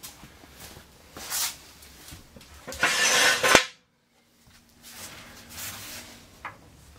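Scraping and rustling handling noises in a garage, loudest about three seconds in, then cut off suddenly into a moment of dead silence.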